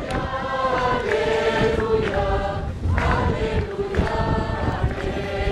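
A choir of nuns and monks singing a liturgical chant together, mixed voices on one melody with long held notes. A few short knocks sound under the singing.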